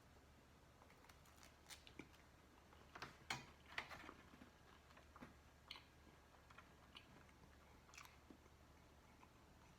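A person biting and chewing bread: faint, irregular crunches and mouth clicks, thickest about three to four seconds in.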